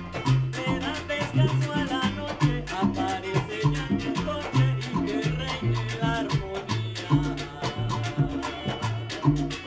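A live Latin band playing a steady groove: congas and timbales, a repeating bass line and the strummed cuatro, with a woman singing over it.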